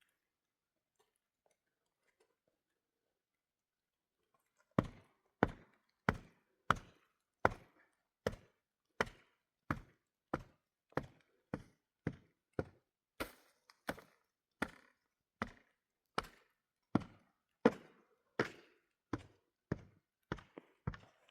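Steady chopping: sharp, evenly spaced strokes about one every two-thirds of a second, starting about five seconds in after near silence.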